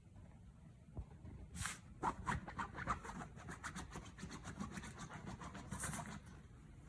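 Bichon Frise coughing with laboured breathing: one sharp cough about a second and a half in, then a quick run of short rasping sounds for about four seconds, and another cough near the end. The owner found the cause to be a cold.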